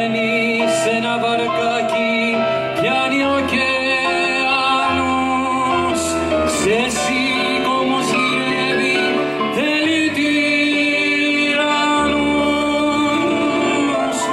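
Live amplified duet: a man and a woman singing through microphones with vibrato and sliding into notes, over sustained keyboard accompaniment.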